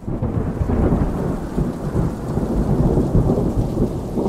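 Wind and rain: a dense, steady rumble, heaviest in the low range.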